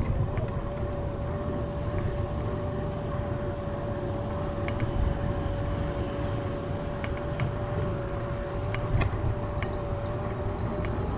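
Bicycle riding along a paved path: a steady low rumble of wind and rolling, with a whine held at one pitch throughout and a few light clicks.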